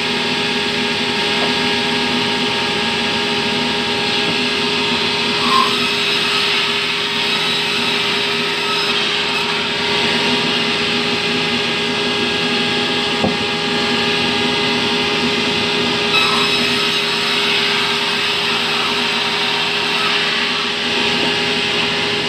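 Sawmill vertical band saw running steadily, a constant machine hum with a hiss from the blade ripping a log of fibrous terap wood, a kind that dulls the saw quickly. A few brief knocks rise over it.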